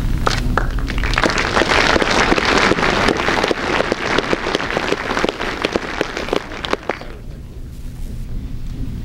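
Audience applauding. The clapping builds within the first second and dies away about seven seconds in, over a steady low hum.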